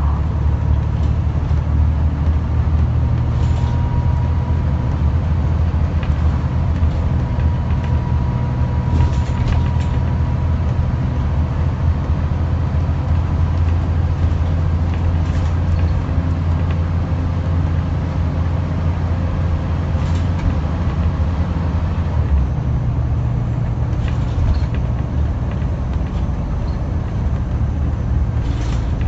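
Scania N94UD East Lancs OmniDekka double-decker bus heard from inside while under way: its 9-litre five-cylinder diesel engine drones steadily and low. A faint whine comes in from about 3 to 10 seconds in, and a few brief clicks sound here and there.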